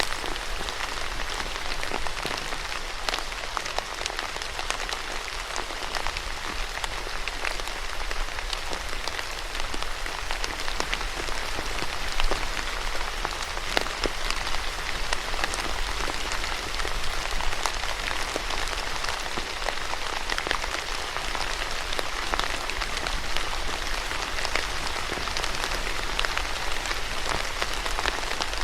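Steady rain falling, an even hiss dotted with many separate drops ticking sharply on a surface.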